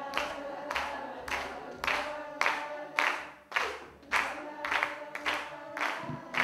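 Rhythmic clapping, nearly two claps a second at an even pace, with voices holding sustained sung notes.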